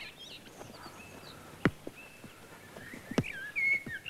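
A football being kicked on grass: two sharp thuds about a second and a half apart, with birds chirping faintly in the background.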